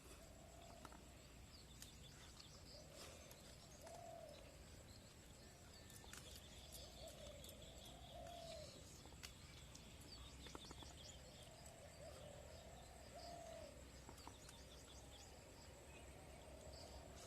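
Faint bird cooing: soft rising-and-falling notes repeated in phrases of two or three, with scattered faint chirps and ticks.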